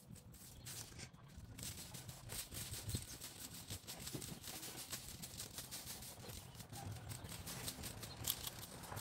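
Fan rake scratching and raking through loose soil and dead leaves in a garden bed, in a run of short, repeated scraping strokes.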